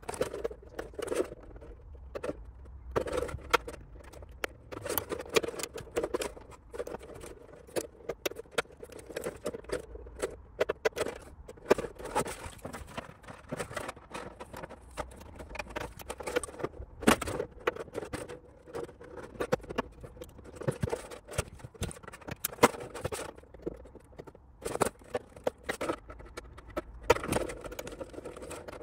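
Clear polycarbonate (Lexan) RC car body being cut out: many irregular sharp snips, clicks and crackles of the thin plastic shell.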